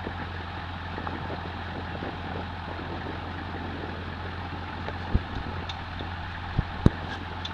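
A vehicle engine idling steadily, with three short sharp knocks in the second half.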